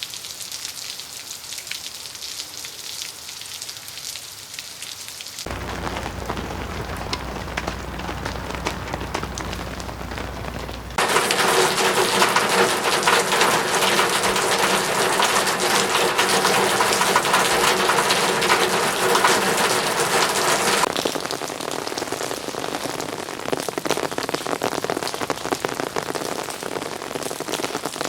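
Rain falling, a steady hiss of drops. It changes abruptly three times as different rain recordings are cut together, and is heaviest and loudest from about eleven to twenty-one seconds in.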